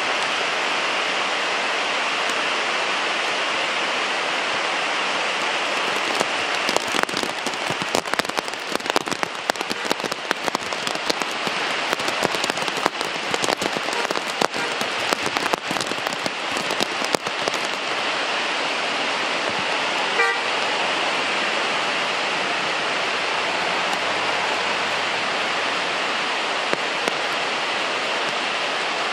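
Heavy rain pouring steadily. From about 6 to 17 seconds in there is a spell of louder, irregular crackling of drops close by. A vehicle horn gives a short toot about 20 seconds in.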